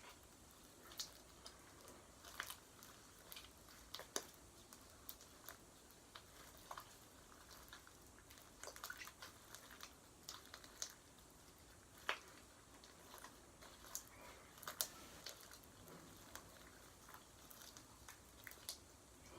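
Homemade slime being worked by hand, giving soft, irregular sticky clicks and crackles.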